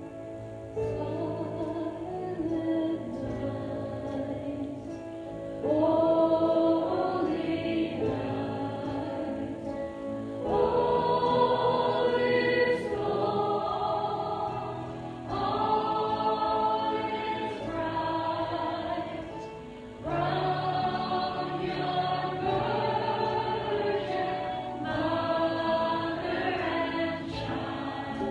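A choir singing a worship song over instrumental accompaniment, in phrases a few seconds long with held notes.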